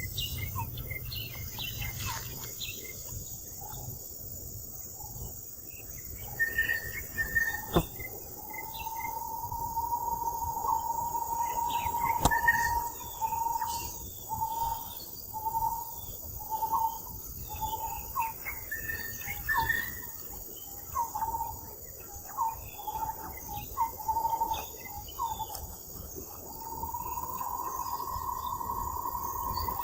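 Steady drone of insects with high chirping, and a whistled call repeating over it. The call is one long held note about a quarter of the way in, then a run of short notes a little faster than one a second, then another long note near the end.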